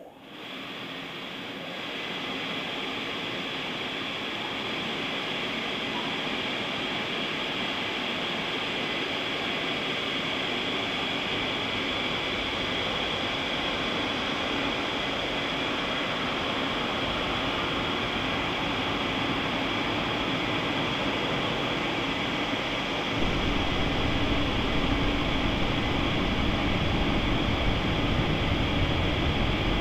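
Automatic car wash machinery working over the car, heard from inside the cabin: a steady rushing noise that starts abruptly, builds over a couple of seconds, and grows louder and deeper about 23 seconds in.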